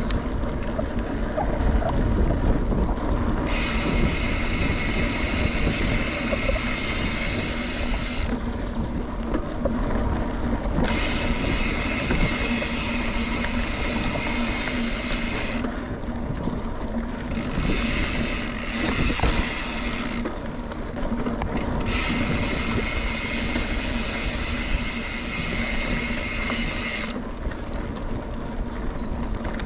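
Mountain bike rolling fast over a dirt trail: tyres on dirt and a steady rattle and knocking of the bike over bumps. A high buzzing comes and goes in stretches of a few seconds.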